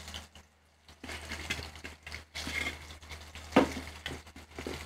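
Light clatter of steel kitchen utensils: a slotted steel spoon knocking against a steel kadai and plate while fried fish bajjis are served, with one sharper clink about three and a half seconds in.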